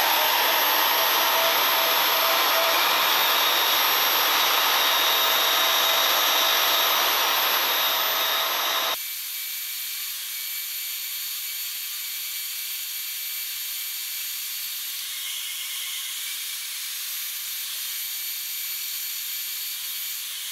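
Portable band saw running with a high whine and cutting through a steel bracket. About nine seconds in, the sound drops abruptly to a quieter, thinner steady noise.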